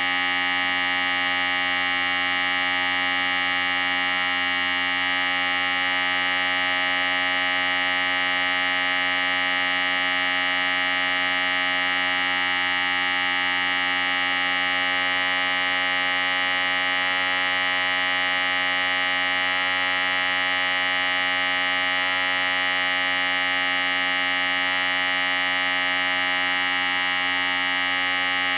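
Electric hair clippers running with a steady, even buzz.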